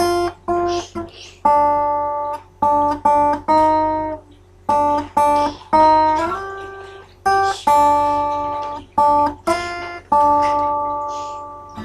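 Guitar played by ear: single chords struck one after another in an uneven rhythm, each ringing out and fading. About six seconds in, one chord slides up in pitch. The last chord rings on and dies away slowly.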